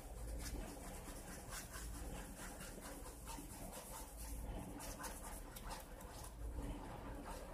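A small stick scraping and stirring two-part JB Weld quick-setting epoxy on a paper plate: a faint run of short, irregular scratchy strokes.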